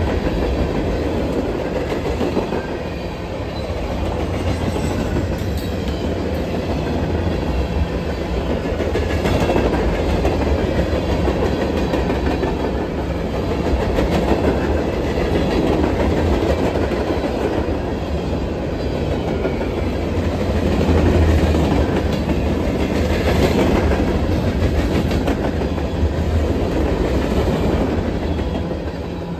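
Freight cars of a CSX train, mostly covered hoppers, rolling past close by: a continuous rumble of steel wheels on the rails, with clacks as the wheels cross the rail joints.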